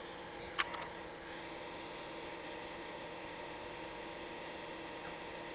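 A steady hum and hiss of electrical bench equipment, with one sharp click about half a second in.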